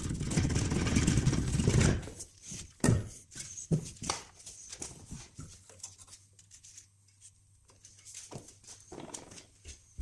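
A loud rough scraping noise lasts about two seconds. Scattered metallic knocks and clicks follow as the front shock absorber strut and the parts around the wheel hub are worked by hand to free the strut.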